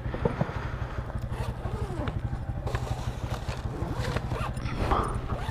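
Yamaha XT660 single-cylinder motorcycle idling with an even low pulse, while the zipper and fabric flap of an insulated delivery backpack are opened and rustled, loudest near the end.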